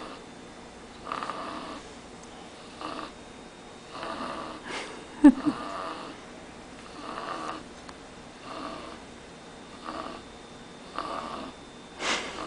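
Pug snoring in its sleep: a noisy breath about every one and a half seconds, with one short, sharper and louder sound about five seconds in.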